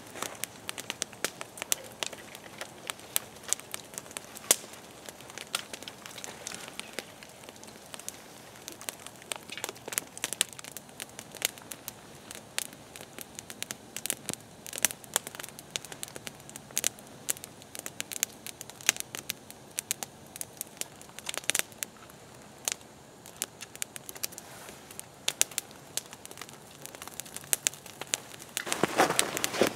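Wood campfire crackling, with irregular sharp pops and snaps over a low hiss. Near the end a louder steady hiss joins in.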